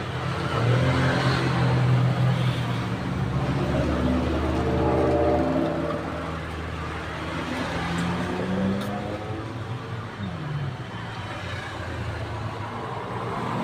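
Roadside traffic: engines of passing vehicles run steadily, rising and fading as they go by, with one engine's pitch falling about ten seconds in.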